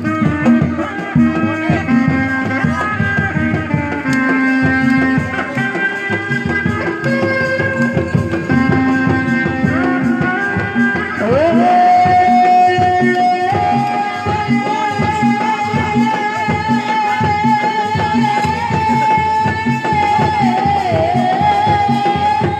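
Sundanese folk music: a fast hand-drum rhythm under a pitched melody. From about eleven seconds in, a high melody line rises into one long, slightly wavering held note.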